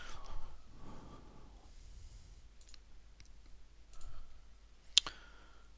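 A few faint, separate clicks of a computer mouse spread over several seconds, the sharpest about five seconds in.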